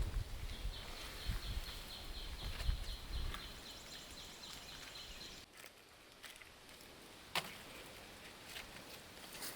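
Outdoor rural ambience: a rapid, high chirping repeats about five times a second for roughly five seconds, over a low rumble, then stops. A single sharp click follows near the end.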